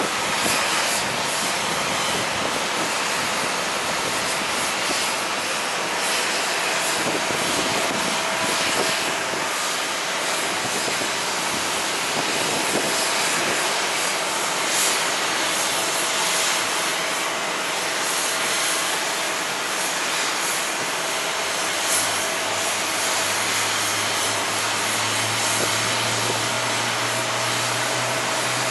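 Airliner engines running, heard as a steady rushing noise with a faint steady whine; a low hum joins about three quarters of the way through.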